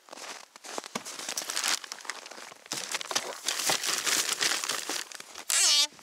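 Crinkling and rustling of material being handled, full of small crackles, with a short loud rasp near the end whose pitch wavers and falls.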